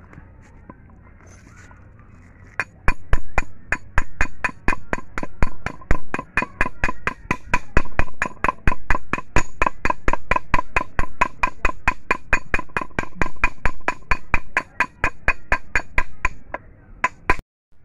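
Hammer tapping metal on metal in a quick, even run of about four ringing blows a second, starting about two and a half seconds in and stopping near the end. The blows drive the front bearing onto the shaft of a Mazda manual gearbox.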